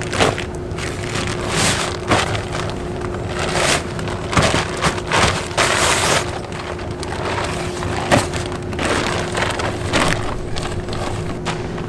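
Heavy cotton canvas of a Nordisk Asgard 7.1 tent and its canvas storage bag being handled and unpacked: irregular rustling, scraping and crunching as the bulky bundle is lifted, turned and pulled out of the bag.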